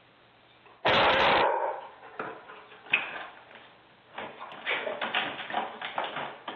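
A dog pawing at a sliding glass door and its handle. A loud burst comes about a second in, then a few sharp taps, and from about four seconds in an irregular run of claws scratching and the handle rattling.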